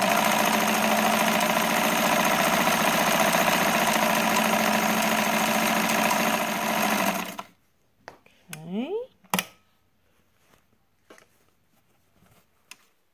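White 765 zigzag sewing machine, a Japanese machine with a 1.3 amp motor, stitching a zigzag seam at a steady speed for about seven seconds, then stopping abruptly. Afterwards come a brief rising sound, a sharp click and a few faint clicks.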